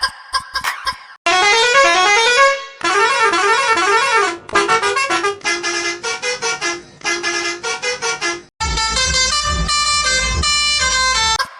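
A bus horn edited into tunes: after about a second of quick sharp clicks, horn notes climb and fall in a melody, then sound in short repeated notes, and the last stretch plays over a heavy bass beat.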